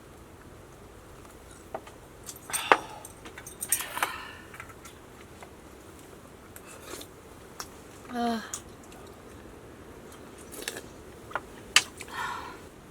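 Metal utensils clinking and tapping against stainless steel cookware and bowls: scattered light ting sounds, a few at a time, with pauses between.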